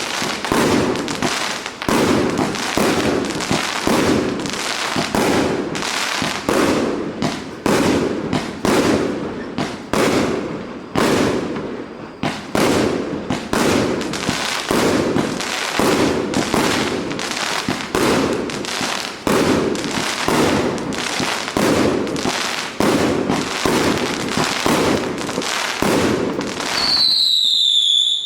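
Firework battery (the 'City of the Sun' PKU3601 cake) firing shot after shot, about one or two bangs a second, each with a short rumbling tail. Near the end a high whistle falls in pitch.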